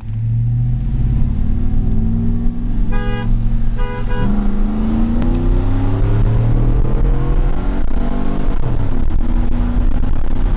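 GMC Sierra pickup engine heard from inside the cab: two short horn toots about three and four seconds in, then the engine pulls hard under full acceleration, its pitch climbing steadily, dropping back at a gear change about eight seconds in, and climbing again.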